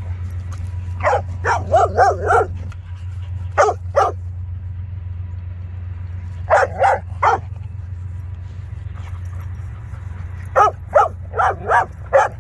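Dogs barking in short clusters of two to five barks, with pauses of a few seconds between clusters, during rough play-wrestling.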